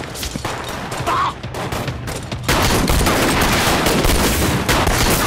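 Heavy gunfire from many guns at once: scattered shots at first, turning into a dense, louder volley about two and a half seconds in.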